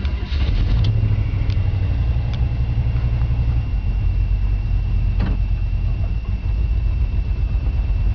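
Chevrolet G30 4x4 van's engine starting and then running steadily as the van moves off, a steady low rumble.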